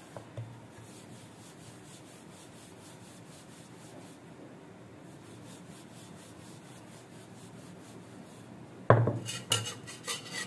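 Wooden rolling pin rolling out paratha dough on a floured stone slab: a soft, repeated rubbing stroke. Near the end comes a burst of sharp wooden knocks as the pin is set down on the stone.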